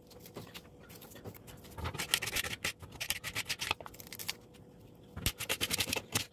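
Dry red onion skin crackling and rustling as it is peeled and scraped away with a small kitchen knife, in three short spells of scratching, with a faint steady hum underneath.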